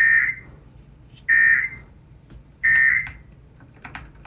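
Three short bursts of Emergency Alert System SAME digital data tones from a weather radio broadcast. Each burst is a harsh warbling screech about half a second long, sent three times a little over a second apart.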